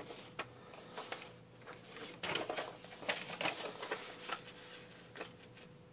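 A letter-sized sheet of printed paper being folded in half by hand: rustling and crinkling as it is lifted and creased, busiest from about two to four seconds in.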